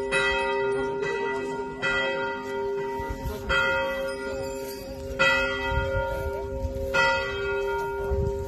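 A single church bell struck about every second and three-quarters, each stroke ringing on into the next.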